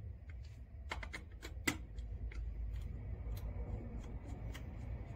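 Small clicks and scrapes of hand work: a small flathead screwdriver working the screw terminals of a transceiver circuit board while wires are pushed in and the board is handled, with one sharper click about a second and a half in.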